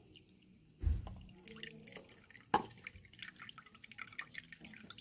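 Hot water poured onto ground coffee in a filter, with coffee dripping through into a cup in many small quick drips. A soft knock about a second in and a sharper click about halfway.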